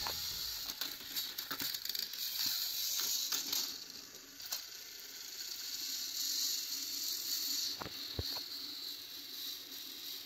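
Small electric motors and plastic gearboxes of two battery-powered toy trains whirring steadily as they push against each other head to head, with a few sharp plastic clicks, the clearest two near the end.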